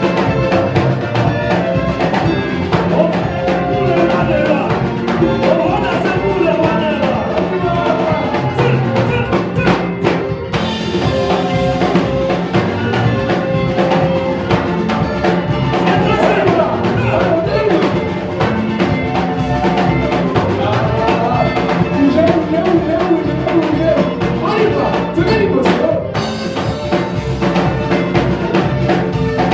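Worship band playing, with a drum kit and other instruments carrying melodic lines.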